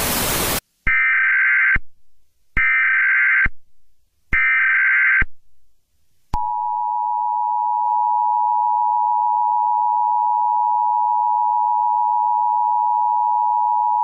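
Emergency Alert System tones: a second of TV static hiss, then three identical short screeches of the SAME digital header, each just under a second long, then, about six seconds in, the steady two-tone EAS attention signal starts and holds.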